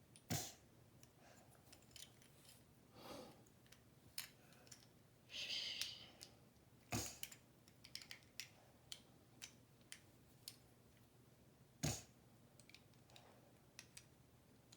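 Plastic Lego bricks being handled and snapped together: three sharp clicks, near the start, about seven seconds in and about twelve seconds in, with lighter taps and ticks of pieces between and a brief rustling hiss about five seconds in.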